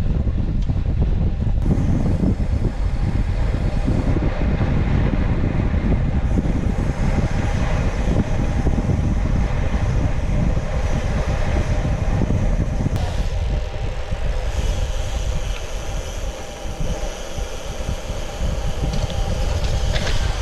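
Wind rushing over the microphone and tyres humming on asphalt as a bicycle is ridden fast on a road. There is a steady low buffeting rumble with a faint steady hum above it, easing a little in the last few seconds.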